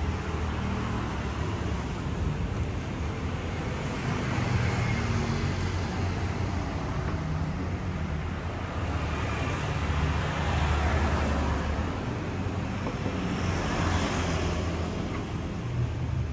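Steady low rumble with a hiss above it: continuous background noise, without distinct knocks or voices.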